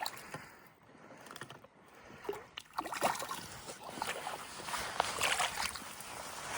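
Creek water splashing and sloshing in irregular bursts, starting about three seconds in after a quieter moment.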